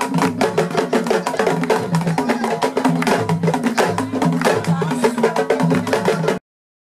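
Fast West African hand drumming on a tall wooden drum: a dense run of sharp slaps mixed with deeper open tones. It cuts off abruptly about six and a half seconds in.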